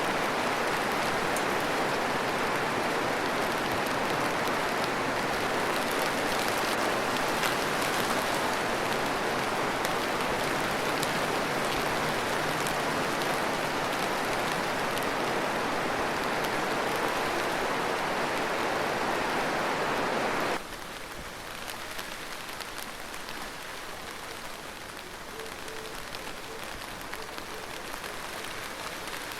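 Steady rain, heavy at first, then cutting suddenly to lighter, quieter rain about twenty seconds in.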